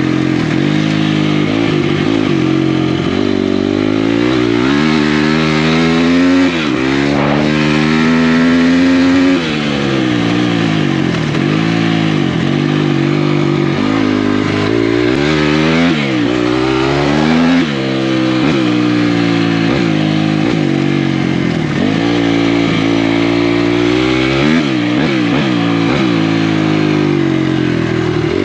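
Off-road motorcycle engine being ridden hard. The pitch climbs as it revs up and drops at each shift or throttle-off, over and over.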